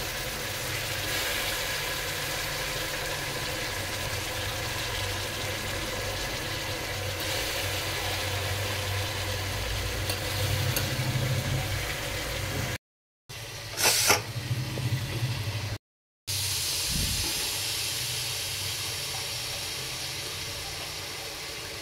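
Meat and masala sizzling as they fry in an aluminium pressure cooker on a gas stove, over a steady low hum. Around two-thirds of the way through, the sound cuts out twice for a moment, and a short, louder hiss comes between the two cuts.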